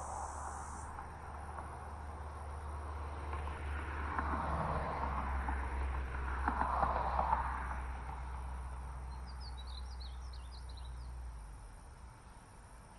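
Traffic noise from the road bridge overhead: a low steady hum with two broad swells in the middle that fades out near the end. A brief run of bird chirps comes about ten seconds in.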